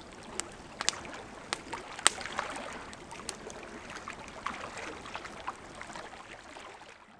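Campfire crackling with scattered sharp pops, over a steady wash of water lapping on the shore; it fades out near the end.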